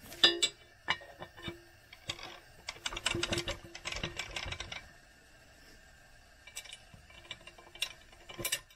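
Steel hole-cleaner attachment clinking and knocking against the post-hole auger's drive shaft as it is slid onto the shaft, with a quick run of metal clicks and rattles about three to five seconds in and a few more clicks near the end.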